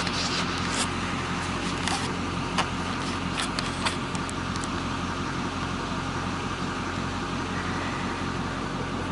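Vehicle engine idling: a steady low hum, with a few sharp clicks in the first four seconds.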